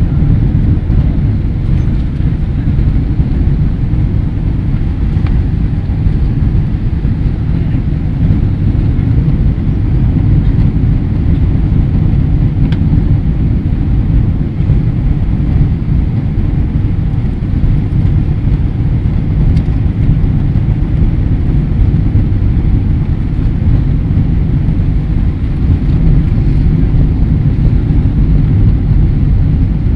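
Steady low rumble of cabin noise inside a Boeing 777 descending on final approach: engines and airflow heard through the fuselage, unchanging throughout.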